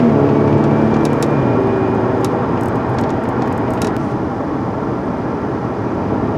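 Car driving along, heard from inside the cabin: the engine note drops in pitch in the first second or so as the car eases off or shifts up, then steady road and tyre noise slowly settles. A few light clicks come in the first few seconds.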